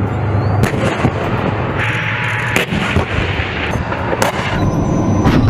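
Main battle tank firing on the move: several sharp gun reports over a continuous loud low rumble.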